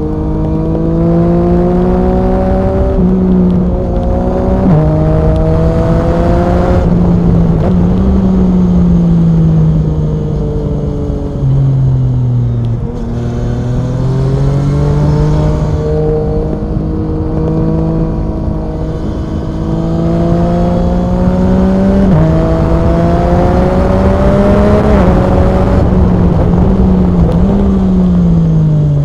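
Yamaha MT-09 SP's 847 cc inline-three engine through an Akrapovic Racing exhaust, under way and pulling through the gears. The pitch climbs and then drops sharply at each upshift, about three and five seconds in and again later. Around the middle the engine slows down off the throttle, then pulls hard again.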